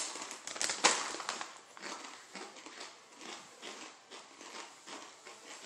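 A crinkly chip bag rustles as a hand digs into it, with the loudest crackle about a second in. Then come many sharp crunches of kettle-cooked potato chips being chewed.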